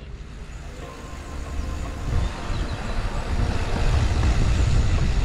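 Mountain bike rolling over cobblestones: a rough tyre rumble with wind buffeting the microphone, growing louder from about a second in.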